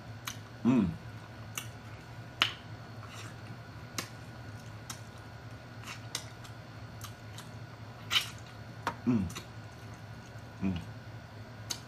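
Close-up eating sounds: wet lip smacks and mouth clicks while chewing rotisserie chicken pulled apart by hand, with a few short hums from the eater about a second in and twice near the end.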